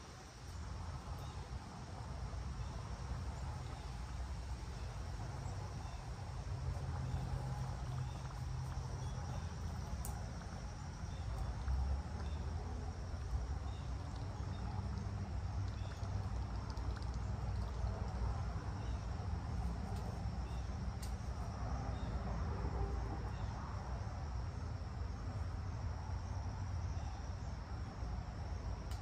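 Insects trilling steadily in one high, unbroken note, over a low rumble of wind on the microphone.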